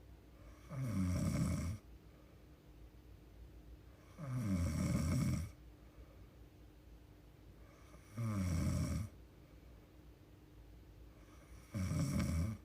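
A sleeping young woman snoring, four snores about every three and a half to four seconds, each about a second long.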